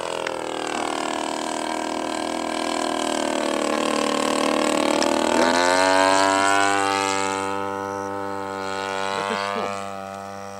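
Engine and propeller of a radio-controlled Yak-54 model aerobatic plane in flight, a steady buzzing note. Its pitch dips, then climbs about five seconds in. It is loudest around six seconds and fades near the end as the plane moves away.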